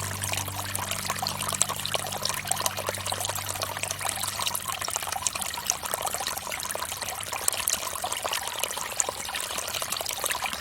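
Water from a bamboo fountain trickling and splashing steadily, a dense patter of small drips and splashes. Low music notes underneath fade out in the first few seconds.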